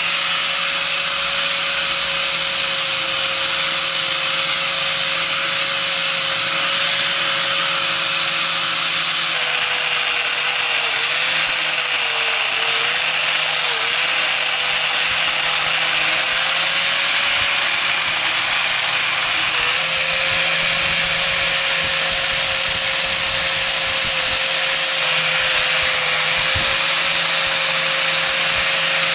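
Electric power tool running steadily with a hiss. Its motor pitch dips briefly several times between about ten and fourteen seconds in, as it comes under load.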